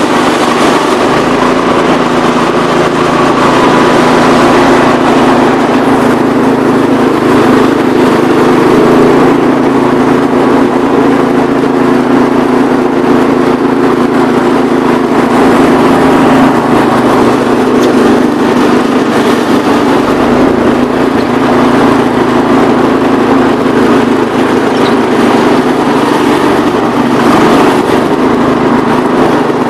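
Gravely 432 walk-behind tractor's engine running steadily under load, driving a rotary power brush that sweeps snow.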